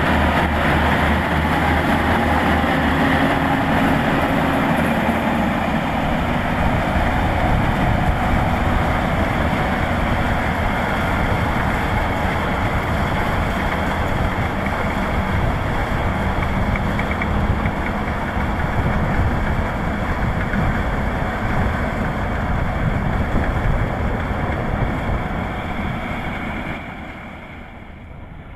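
Kubota DC-105X combine harvester running steadily while cutting rice, a continuous dense mechanical drone. It drops away near the end.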